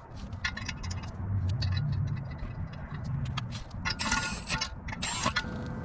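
Handling noise: scattered light clicks, clinks and scrapes, with a low rumble through the first half.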